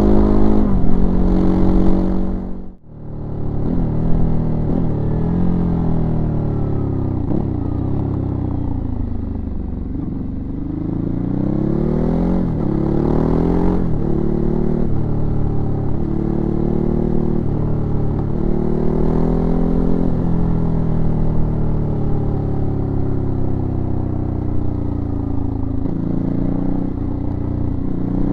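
Ducati Hypermotard 939's 937 cc L-twin engine heard from the rider's seat, its pitch rising and falling over and over as the bike accelerates and slows along a lane. The sound drops out for a moment about three seconds in.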